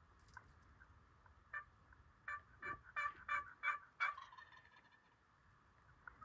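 Faint turkey yelping: a run of about seven evenly spaced notes, a little over a second and a half in and ending about four seconds in.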